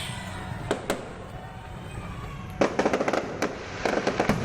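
Aerial fireworks display: two separate bangs about a second in, then rapid volleys of sharp cracks and pops from shells bursting overhead through the second half.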